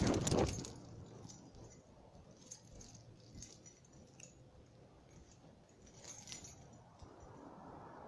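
Rustling and clinking right up against the microphone for about the first half second, then faint, scattered small clicks and rustles.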